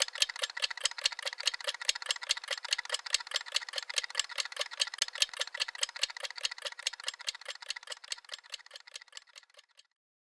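Rapid, even clicking, about five clicks a second, each with a slight ring, fading away near the end.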